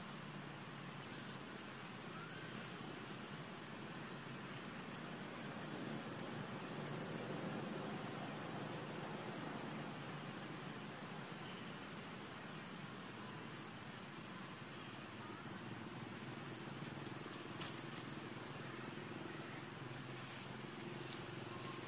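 Steady outdoor ambience: a continuous high, thin insect drone over a low, distant engine-like hum.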